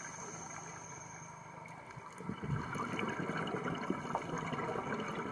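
Underwater bubbling from a scuba diver's exhaled breath: quiet at first, then from about two seconds in a louder, crackling, gurgling rumble of bubbles leaving the regulator.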